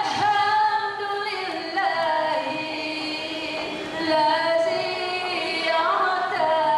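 A woman singing a nasyid, holding long notes that slide and curl in pitch between phrases.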